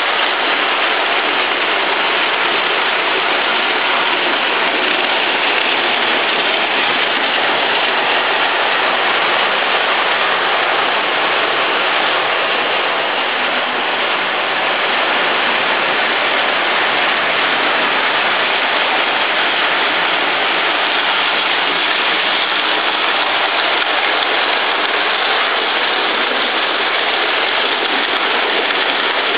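Two Lionel O-gauge model trains running on three-rail metal track: a steady whirring rattle of metal wheels and electric motors.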